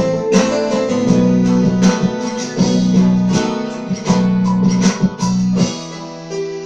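Acoustic guitar strummed in a steady rhythm over a low held bass backing, in a song's instrumental ending. Near the end the backing drops out and a final chord rings and fades.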